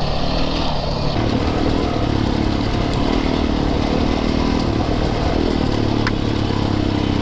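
Yamaha YZ450FX four-stroke single-cylinder dirt bike engine running at fairly steady revs while riding. A short tick about six seconds in.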